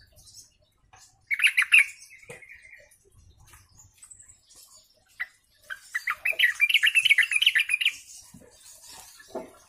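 Yellow-vented bulbul (trucukan) singing its bubbling 'ombyokan' chatter in two bursts of rapid notes: a short one about a second in and a longer one of about two seconds past the middle.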